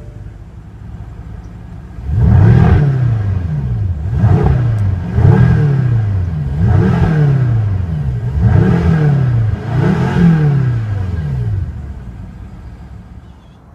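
2015 BMW M6 Gran Coupe's 4.4-litre twin-turbo V8 idling, then revved six times in quick throttle blips about one and a half seconds apart, each rising and falling in pitch, before settling back to idle.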